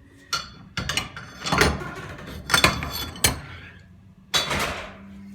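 Metal parts of a Graco Fireball air-operated pump clanking and knocking in a series of sharp, irregular strikes as a piece is worked out of the pump body. A low steady hum comes in near the end.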